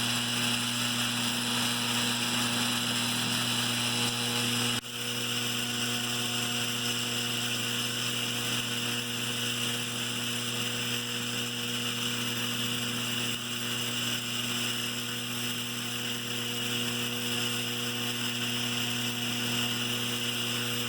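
Lionel 3656 operating cattle stockyard's vibrator mechanism buzzing steadily as it shakes the toy cattle along, with a brief dropout about five seconds in.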